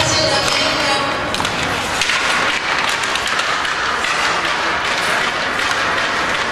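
Ice hockey rink ambience: arena music cuts out about a second in, leaving a steady wash of noise with scattered sharp clicks.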